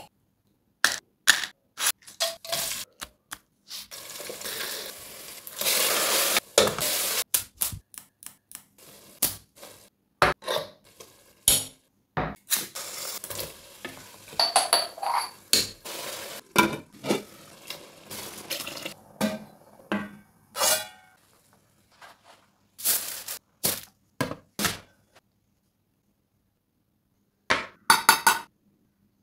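Cooking sounds at a steel pressure-cooker pot: oil poured in, food frying, and a ladle stirring, scraping and knocking against the pot, with clinks, in short separate snatches. Near the end a knife taps a steel dome lid several times in quick succession, ringing.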